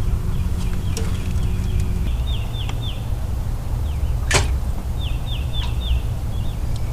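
Steady low rumble of wind on the microphone with a low hum that stops about two seconds in. A songbird repeats runs of quick down-slurred whistles, and there is a single sharp swish about four seconds in.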